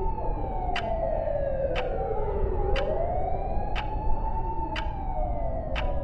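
A siren wailing in one slow fall and rise of pitch, over sharp ticks about once a second and a steady low rumble.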